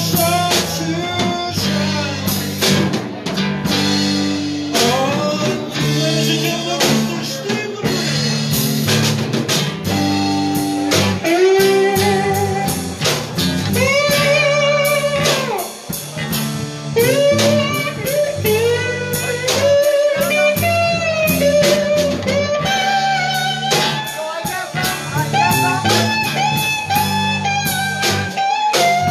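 A live blues band playing: lead electric guitar bending and sliding notes over bass guitar and a drum kit.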